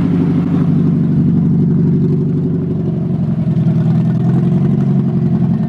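Mazda Miata four-cylinder running on open headers with no exhaust, loud and raw, holding a steady speed near idle.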